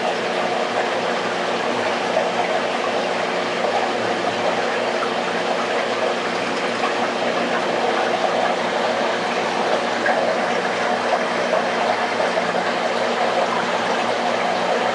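Aquarium pumps and circulating water: a steady rushing noise with a low, constant hum.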